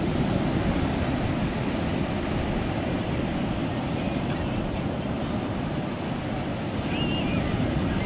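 Steady noise of ocean surf breaking on the shore, mixed with wind buffeting the microphone. Faint distant shouts of children come through about halfway and again near the end.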